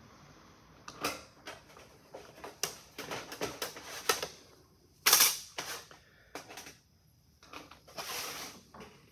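Aviation snips cutting 26-gauge galvanized sheet steel: a run of short, crisp snipping clicks as the blades are squeezed and pushed forward along the cut. There is one loud, sharp noise about five seconds in, and a rustle of the sheet near the end.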